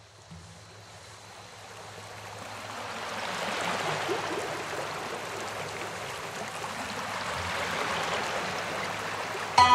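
Rushing water, like a stream, fading in from near silence and growing louder over the first three or four seconds, then running steadily, with a faint low hum underneath. Music comes in right at the end.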